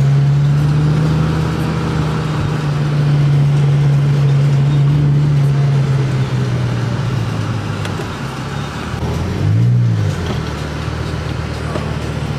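Car engine running steadily under way, easing a little after about six seconds, with a short rise and fall in engine pitch about ten seconds in, like a quick rev blip.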